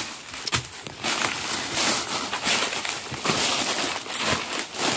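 Footsteps rustling and crunching through dry fallen banana leaves, with irregular steps.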